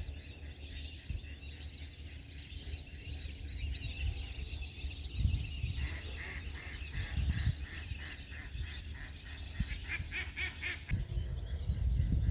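A flock of migratory waterbirds calling, many short calls overlapping. About halfway in, a denser run of rapid, evenly repeated calls starts; it stops abruptly near the end. A low rumble runs underneath.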